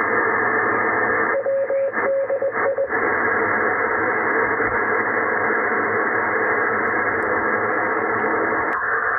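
Shortwave receiver hiss and static in the narrow, muffled band of receiver audio, tuned off the voice of a marine weather broadcast. About a second and a half in, the hiss breaks up for a moment and a steady whistle comes and goes in short pieces.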